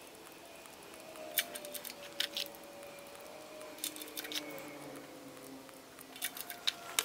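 Light, scattered metallic clicks as hydraulic roller lifters are handled and set into the lifter bores of an LS3 engine block, a few at a time with short pauses between.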